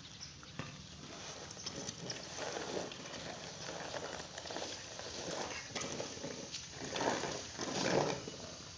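Drying unhulled rice grain being pushed and turned with a long-handled rake: repeated scraping, rustling strokes, loudest near the end.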